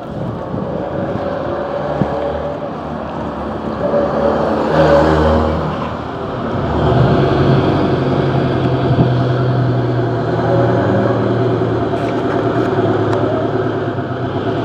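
Motor vehicle engine running close by on the street. It swells about four to five seconds in, then settles into a steady lower hum.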